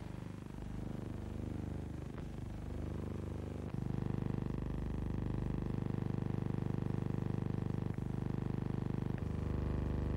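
Steady low electrical hum with a buzzy edge from the transfer of silent newsreel film, not sound from the scene; its tone changes abruptly a few times as the shots change.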